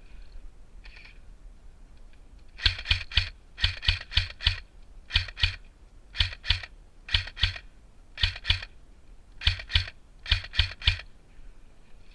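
Airsoft electric gun firing in quick shots of two to four, about one group a second, roughly twenty sharp cracks in all from a few seconds in until near the end.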